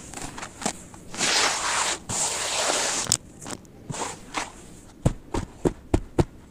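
Gritty sand-cement crumbling: two stretches of grainy crumbling in the first half, with scattered crackles, then about five sharp knocks close together near the end.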